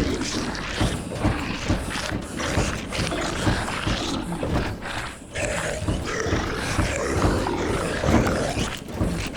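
Guttural zombie moans and growls, layered with creaking and rattling, in a dense horror sound-effects ambience.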